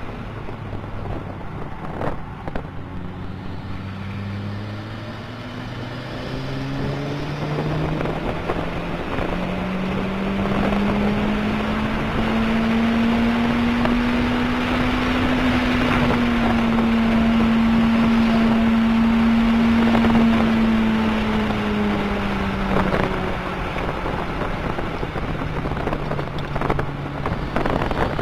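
Toyota MR2 Turbo's turbocharged four-cylinder engine heard from inside the cabin under hard acceleration, its pitch climbing through the gears for about twelve seconds. It then holds at high revs at speed, and the pitch falls near the end as the car slows for a corner. Wind and road noise run underneath.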